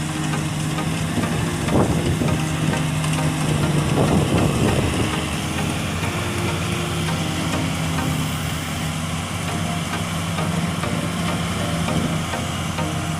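Bimo Extreme 102L rice combine harvester running steadily: an even engine drone with a hiss of machinery over it and a couple of brief louder knocks in the first few seconds.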